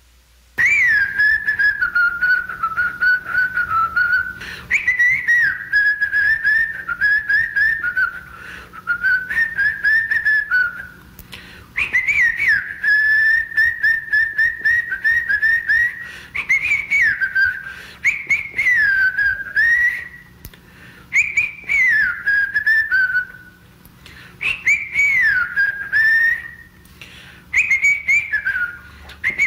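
A person whistling a lively tune in repeated phrases of a few seconds each. Each phrase opens with a quick upward swoop and then runs on in fast, warbling notes.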